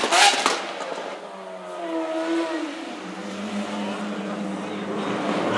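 Lamborghini Aventador's V12 through a Novitec exhaust: the tail of a burst of revs with sharp exhaust crackles at the start, then the engine pulling away at low speed, its pitch rising and dipping once about two seconds in before settling into a steady low drone.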